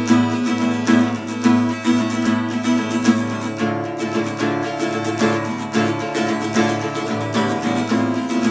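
Acoustic guitar music, strummed and plucked with a steady rhythm.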